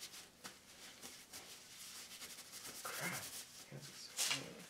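Metal engine parts and tools scraping and rubbing while a part is worked loose from a motorcycle cylinder head, with a short, sharper scrape about four seconds in.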